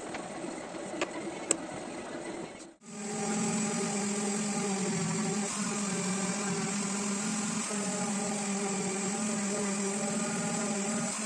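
A power tool's electric motor running steadily with an even hum, starting abruptly about three seconds in. Before it, a few light clicks and knocks over low background noise.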